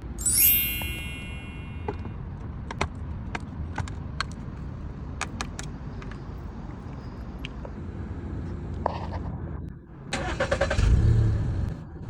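Metal parts clinking and scattered clicks of work on a car, then the car's engine cranking and starting about ten seconds in.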